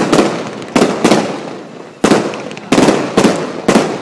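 Aerial fireworks shells bursting: about seven sharp bangs in four seconds, some in quick pairs, each trailing off in a rumbling echo.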